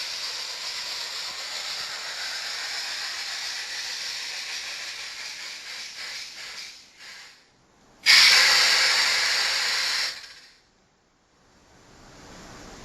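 Recorded steam effects played by the sound-module wagon running with a Märklin BR 03 model steam locomotive. A steady steam hiss fades out, then a much louder hiss starts about eight seconds in, lasts about two seconds and stops, and a quieter hiss follows near the end.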